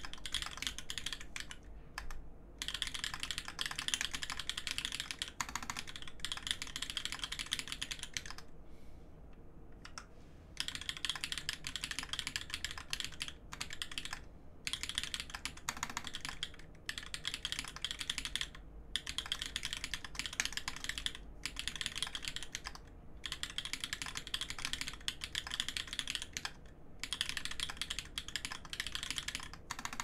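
Typing on a custom mechanical keyboard (TGR Alice case with copper plate, lubed Everglide Dark Jade Black switches, GMK Olivia keycaps): fast runs of key presses broken by short pauses, with one longer pause of about two seconds about a third of the way in.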